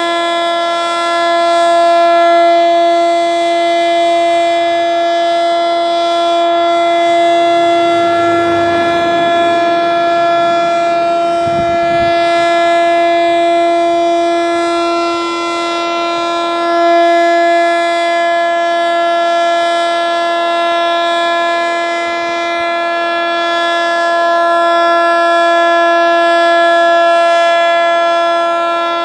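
ASC T-121 AC/DC siren sounding its steady alert tone at about 342 Hz, its loudness slowly swelling and fading as the horn rotates. The siren seems underpowered, which the uploader puts down to it not getting enough voltage rather than dying batteries. A brief rushing noise swells and fades about a third of the way in.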